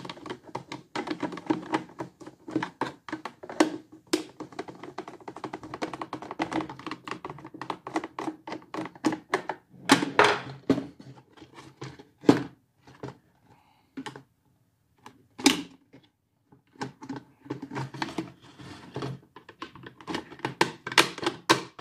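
Screwdriver working screws out of a plastic Sinbo electric kettle: a dense run of small clicks and scrapes, with a few louder plastic knocks about ten, twelve and fifteen seconds in. Near the end, the screwdriver prying at the kettle's plastic lid cover.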